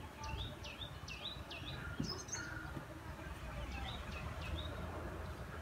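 A small bird calling in two bouts of short, swooping chirps repeated several times a second, over a low steady background rumble.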